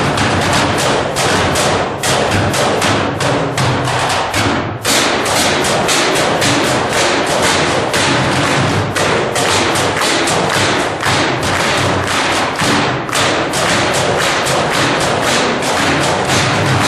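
Live percussion: fast, sharp strikes in a steady rhythm of about five a second, with a brief break about five seconds in.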